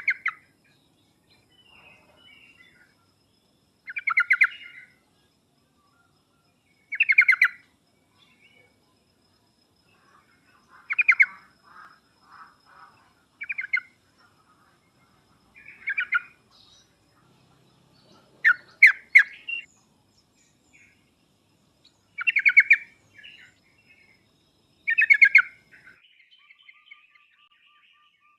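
Yellow-vented bulbul (trucuk) song: short bubbling phrases, each under a second long, repeated about every three seconds, with a fainter rasping chatter near the end. This is lure song meant to make other trucuk birds answer.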